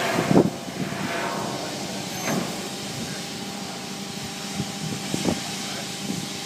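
Forklift engine running steadily while it holds a suspended load, with a few brief louder noises over it, the loudest about half a second in.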